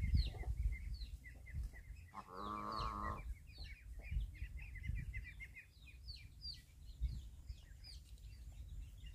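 Farmyard ambience: birds chirping in many quick, high chirps, with one drawn-out animal call of about a second a little over two seconds in, and another starting right at the end.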